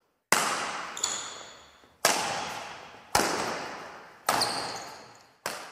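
Intro sound effects of lightning cracks: five sharp strikes about a second apart, each dying away slowly, the first and fourth followed by a faint high ringing.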